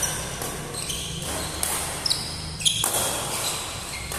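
Badminton doubles rally: sharp racket strikes on the shuttlecock, the loudest about two and a half seconds in, with short high squeaks of shoes on the court mat, echoing around a large hall.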